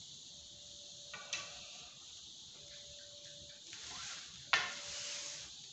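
Surf fishing rod sections being handled: a couple of light knocks a little over a second in, then the cloth rod bag rustling as a section is drawn through it, with a sharper knock about four and a half seconds in.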